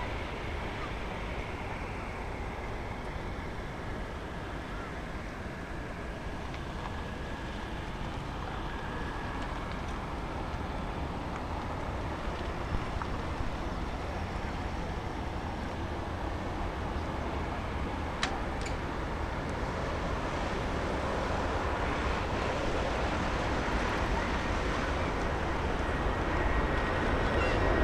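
Airbus A330 jet engines at takeoff thrust heard from a distance, a steady low rumble mixed with wind on the microphone, slowly growing louder toward the end. A single sharp click comes about 18 seconds in.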